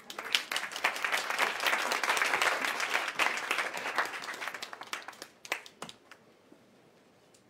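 Audience applauding, fading out after about five seconds with a few last claps.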